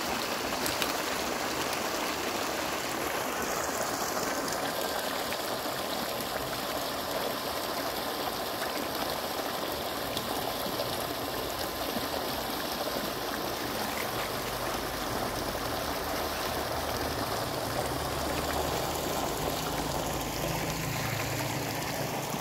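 Steady rushing of water from a fish pond being drained, with some sloshing near the end as a person wades through the shallow water with a net.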